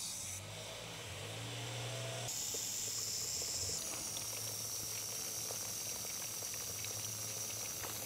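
Garden hose spray nozzle running water into the tiers of a styrofoam fountain: a steady hiss of spray with water trickling and splashing over the edges, a flow test of the unsealed tiers.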